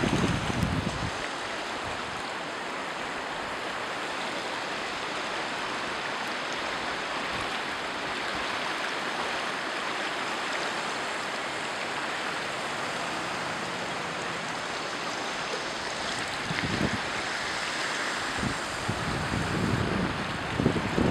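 Salzach river in flood, its swollen brown water rushing steadily past the bank wall. Wind buffets the microphone with low rumbling gusts at the very start and again over the last few seconds.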